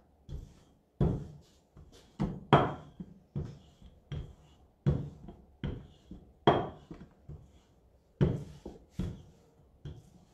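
Wooden rolling pin rolling out dough on a wooden cutting board, with a series of wooden knocks, about one or two a second, as the pin strikes and rolls over the board on each stroke.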